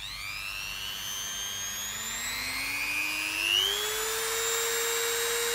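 Kkmoon 180 W handheld rotary tool (a Dremel-style electric grinder) switched on and running free with no bit in work. Its motor whine rises steadily in pitch over about four seconds as the speed is turned up, then holds steady: the tool works.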